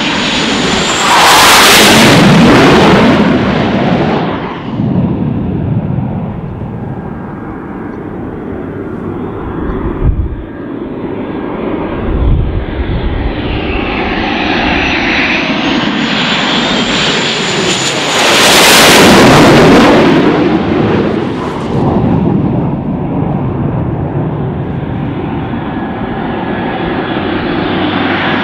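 Blue Angels F/A-18 Hornet jets passing low twice, about a second in and again about eighteen seconds in. Each pass swells to a loud rush and falls in pitch as it goes by, with a steady jet rumble and a faint high turbine whine in between.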